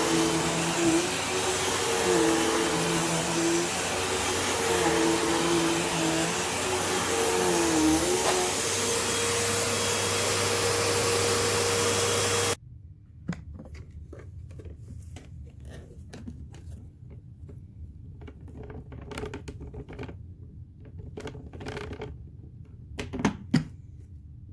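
Hoover Elite Rewind Plus upright vacuum cleaner running, its motor tone dipping and rising as it works, then stopping abruptly about halfway through. After that come quiet scattered clicks and knocks of handling, with two louder knocks near the end.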